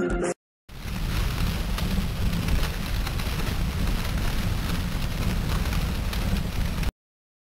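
Steady rushing noise with a deep rumble, a dramatic sound effect, starting just under a second in and cutting off suddenly near the end.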